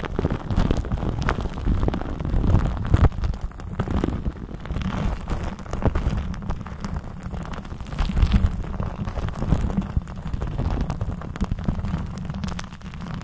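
Lipstick rubbed directly against the microphone, giving a continuous scratchy crackle over a heavy low rumble, with many small clicks.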